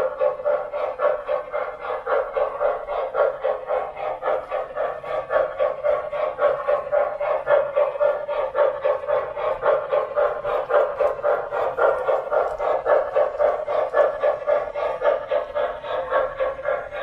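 Sound system of an MTH RailKing Norfolk & Western Y6b model steam locomotive playing steady steam chuffs, about four a second.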